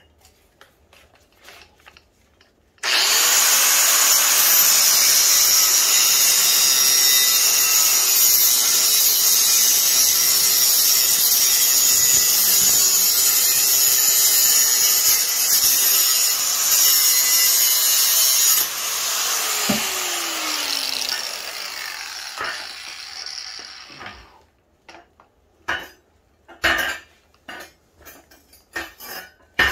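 Makita angle grinder with a cutoff wheel cutting through the steel tubing of a shopping cart: it starts about three seconds in and runs steadily for about sixteen seconds, then is let off and spins down with a falling whine. Several short, sharp sounds follow near the end.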